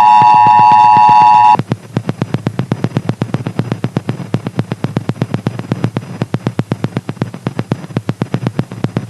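EAS two-tone Attention Signal, the 853 Hz and 960 Hz tones sounding together, holding steady and then cutting off suddenly about a second and a half in. A fast, even run of sharp clicks follows, about eight a second.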